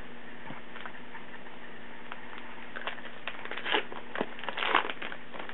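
Baseball trading cards being handled: short rustles and light clicks of card stock, sparse at first and busiest in the second half.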